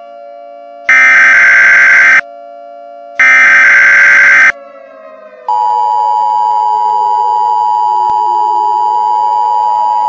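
Emergency Alert System warning tones. The last two of three harsh, buzzy data bursts of the SAME digital header, each about a second long with short gaps, come first. About halfway in, the steady two-tone EAS attention signal starts and holds. A fainter lower tone slides down and back up underneath.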